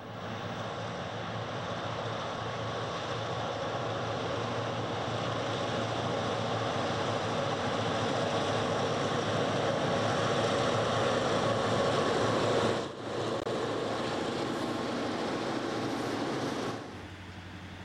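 Diesel locomotive engine running as a train approaches, a steady drone that grows louder, dips sharply for a moment about two-thirds of the way through, then drops off abruptly near the end.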